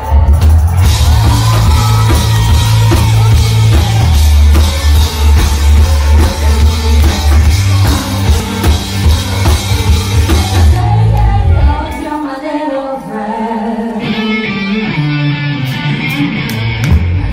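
Live rock band playing loud, with drums, bass and guitar and a woman singing. About twelve seconds in, the heavy bass and drums drop out, and the full band comes back in a couple of seconds later.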